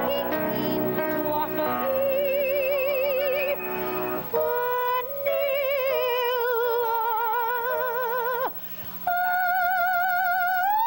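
Female soprano voice singing long, high notes with wide vibrato, over piano chords that fade after the first couple of seconds. The voice leaps higher about four seconds in, pauses for a quick breath near the end, then slides up to a held top note.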